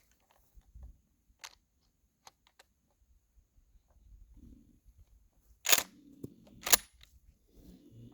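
Pump-action shotgun: two sharp, loud cracks about a second apart, after a few faint clicks.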